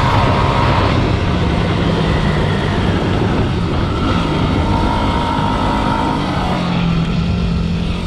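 Dirt bike engine running while riding, loud and continuous, its note shifting up and down with the throttle.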